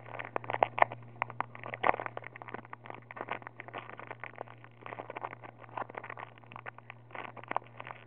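Foil wrapper of a Pokémon trading-card booster pack crinkling and crackling as it is handled and opened, many small irregular crackles, over a steady low hum.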